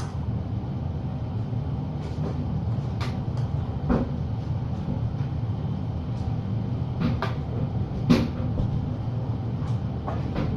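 A steady low machine hum, with a number of short clicks and knocks scattered through it; the loudest knock comes about eight seconds in.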